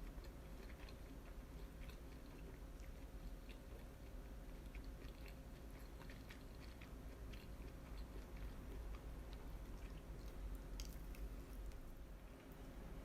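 Close-up chewing of grilled yakitori: faint wet mouth sounds with scattered small crunchy clicks, over a steady low hum.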